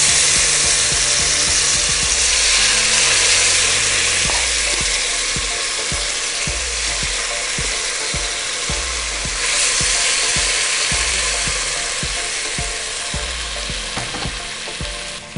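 Chicken curry sizzling as it is spooned into a pot of hot oil tempered with whole spices. Throughout, a steel spoon scrapes and clinks against the frying pan, and the sizzle swells again about two thirds of the way through.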